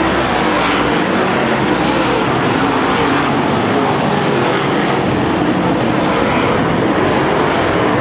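A field of dirt late model race cars running flat out around a dirt oval. Their engines blend into one loud, steady din.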